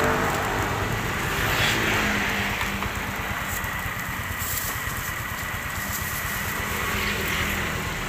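A motor vehicle engine running close by, strongest in the first couple of seconds and then fading, over a steady low street rumble.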